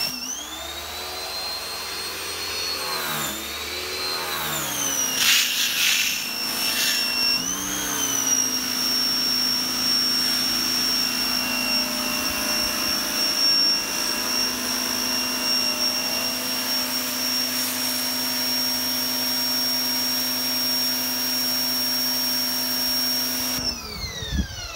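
SUNGOLDPOWER 2200 W electric pressure washer running and spraying. Its motor whine wavers and sputters for the first several seconds while the pump clears air from the water line, then settles into a steady whine. It winds down, falling in pitch, near the end.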